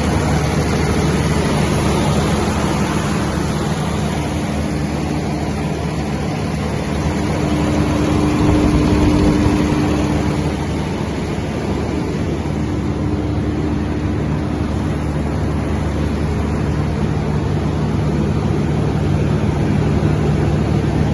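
A 200 kVA FG Wilson diesel generator set running steadily, with a low, even engine hum.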